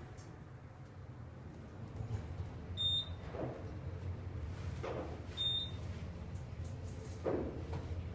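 Otis Series 7 elevator cab travelling, a steady low hum from the car's motion, with two short high beeps about two and a half seconds apart.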